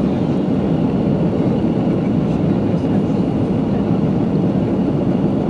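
Cabin noise of an Airbus A330-300 climbing after takeoff, heard from a window seat: the engines and the air rushing past the fuselage make a steady, low-pitched rumble at an even level.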